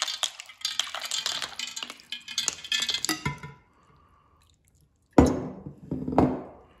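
Ice water poured from a glass jug into a bowl of raw cut potato strips: ice cubes clink against the glass and splash into the bowl for about three seconds. After a short near-silent pause, two loud thuds come about a second apart.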